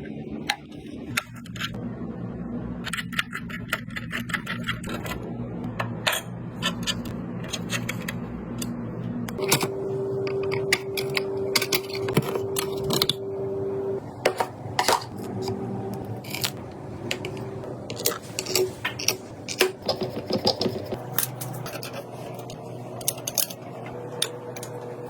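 Small electric motors of a remote-control truck and excavator model whirring, with a steady whine for a few seconds in the middle, over many sharp clicks and scrapes of plastic parts.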